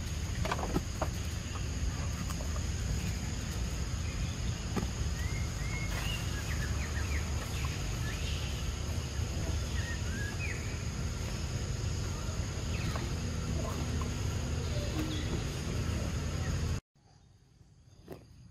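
Forest ambience: a steady low rumble under a steady high insect-like hum, with scattered short high chirps. Near the end it cuts abruptly to a much quieter ambience.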